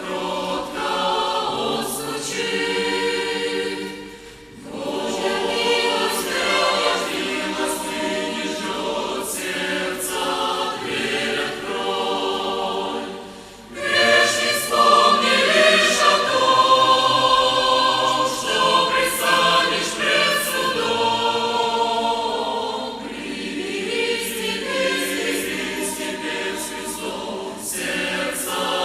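Christian choir singing a hymn. The sung phrases break off briefly about four seconds in and again about halfway through.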